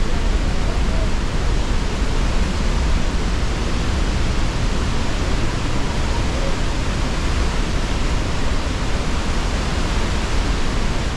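Loud, steady rush of the Pailón del Diablo waterfall on the Río Verde, falling water making an unbroken roar.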